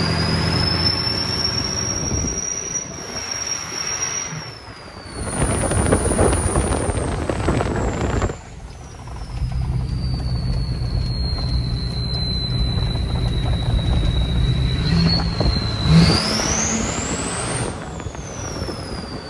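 Built 6.0 Powerstroke V8 turbo-diesel with a 10-blade KC turbo whistling over the engine as the truck accelerates and lets off, the high whine rising and falling in pitch with the throttle. Near the end a hard pull sends the whistle climbing sharply before it falls away.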